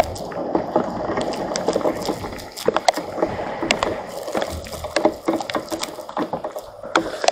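Raindrops pattering irregularly close to the microphone: a stream of sharp, uneven taps over a steady hiss.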